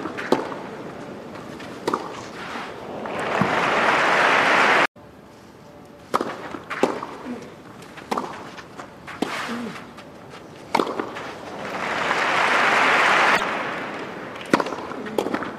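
Tennis balls struck by racquets in two rallies, sharp pops about a second apart. Each rally ends in a swell of crowd applause; the first is cut off suddenly.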